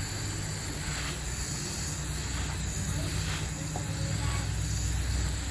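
Steady hiss of water spraying from a garden hose, with a low hum underneath.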